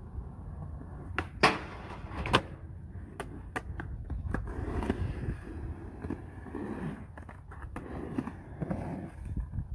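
Skateboard wheels rolling on concrete with a steady rumble, broken by sharp clacks of the board against the concrete; the loudest two come about one and a half and two and a half seconds in, with lighter clacks a second or so later.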